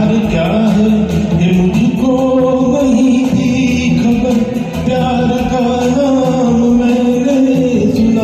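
Karaoke backing track playing a melodic interlude between verses: a held, gliding melody line over steady accompaniment.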